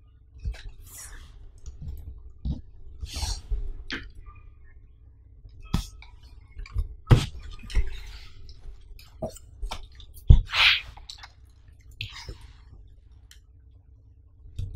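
Hands rubbing, tapping and shifting a large cardboard box on a table: scattered scrapes and dull knocks of cardboard, the loudest knock about ten seconds in, over a low steady hum.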